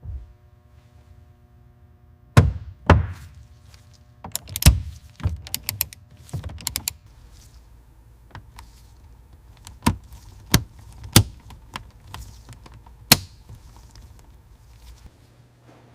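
Irregular knocks, taps and thunks of tools and parts being handled during hands-on car restoration work. About a dozen sharp strikes come at uneven intervals, the loudest in the first five seconds, over a faint low steady hum.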